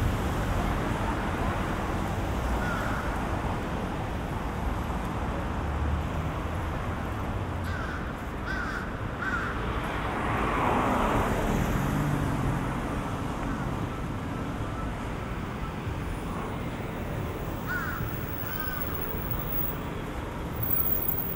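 Steady road traffic on a city street, with a vehicle passing close about halfway through. A bird calls a few times in short groups over the traffic.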